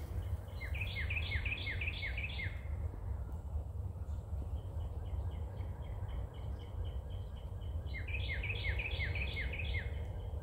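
A songbird singing two phrases of quick repeated notes, about half a second in and again near the end, with a run of fast, high chips between them. A steady low rumble lies underneath.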